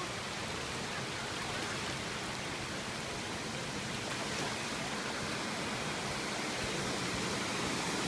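Steady rush of water from a shallow, rocky stream below a waterfall, flowing over and around stones.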